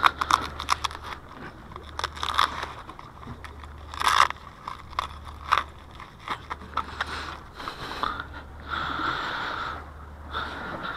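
Close handling noise: metal jigging lures clicking against each other and scraping in a fabric lure roll, and a neoprene glove with a wrist strap being pulled on, as a run of short clicks and a few longer scrapes.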